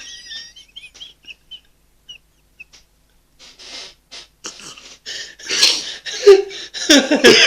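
A person imitating a turkey with their voice: a few faint squeaks, then a run of short, breathy gobbling sounds that grow loud over the last two seconds.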